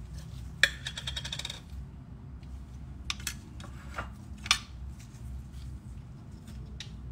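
A measuring spoon clinking against a jar and the blender jug as a spoonful is scooped and tipped in. A quick jangle of small clinks starts about half a second in and lasts about a second, then a few single sharp clinks follow around three to four and a half seconds.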